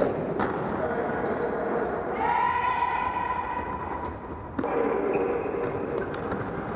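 Echoing thuds of a soccer ball being kicked and bouncing on a hardwood gym floor during play, with a drawn-out call from a player held for about two seconds in the middle and short sneaker squeaks later.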